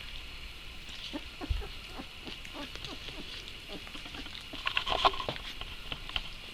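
Pets at play: scuffling and pattering, with many small clicks and scratches and a busier burst about five seconds in.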